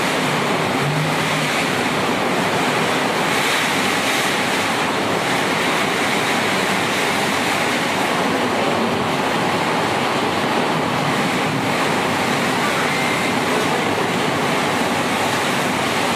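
Heavy rain pouring steadily in a strong wind, an even hiss of water with no let-up.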